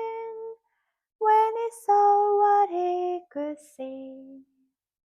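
A woman singing a slow, simple children's song melody alone, in long held notes, ending on a low note about four and a half seconds in.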